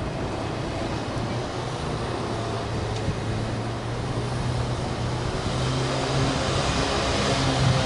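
Steady low rumble of distant vehicles with a low hum, slowly growing louder toward the end.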